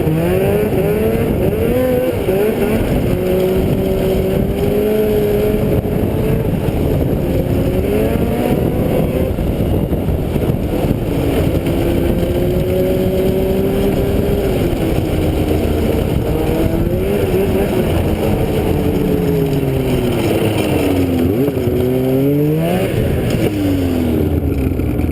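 Engine of a small vehicle running under way, its pitch rising and falling as the throttle changes, over a steady rush of wind and motor noise. Near the end the revs drop low and then climb sharply.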